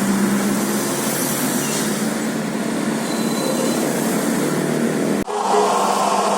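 Bus engine and road traffic noise, fairly loud and steady, breaking off abruptly about five seconds in and giving way to different traffic noise.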